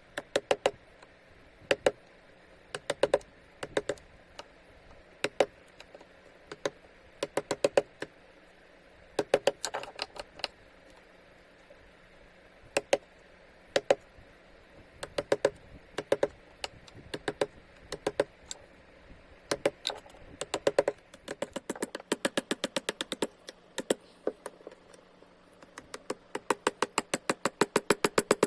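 Light, sharp taps in irregular groups, some single and some in quick runs of about ten a second.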